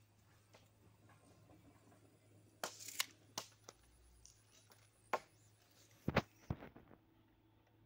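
A few irregular sharp clicks and knocks with some rustling, the loudest a quick double knock about six seconds in, over a faint steady low hum.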